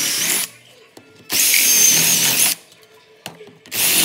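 Electric drill boring holes in a scrap steel bracket plate with a step bit, run in three bursts: it stops about half a second in, runs again for about a second, then starts once more near the end. A high motor whine wavers in pitch as the bit loads up.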